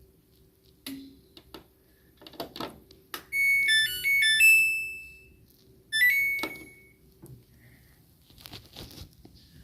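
Samsung EcoBubble washing machine's control panel playing a short melody of electronic beeps, followed about a second later by a shorter beep figure, with a few soft clicks and knocks around them.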